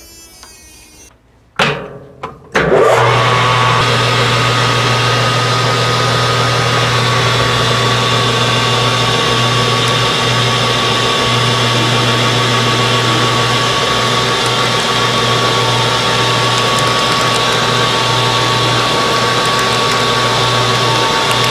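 A couple of short knocks, then from about three seconds in a metal lathe running steadily with a low hum and a thin whine, its turning tool facing the end of a spinning aluminium wheel blank with a pressed-in bronze bushing.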